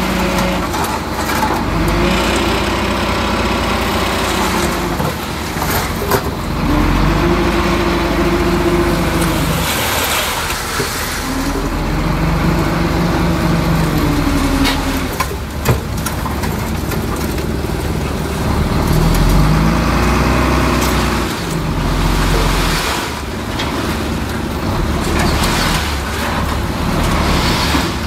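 Heavy earthmoving machinery's diesel engine running under changing load. Its pitch swells up and falls back in repeated surges a few seconds apart, with a few sharp knocks in between.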